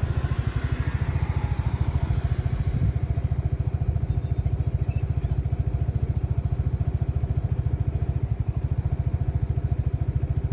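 Lexmoto Nexus 125cc engine running at a steady speed with an even, rapid low exhaust beat. The engine is faulty and misfiring, which the owner shows with its diagnostic readings.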